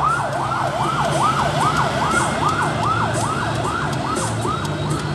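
Emergency-vehicle siren in a fast yelp, its pitch sweeping up and down about two to three times a second and fading near the end, over a low steady traffic hum.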